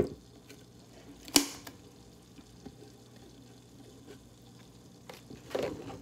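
Small indoor tabletop water fountain running: its submersible pump hums steadily and water trickles faintly. One sharp knock about a second and a half in.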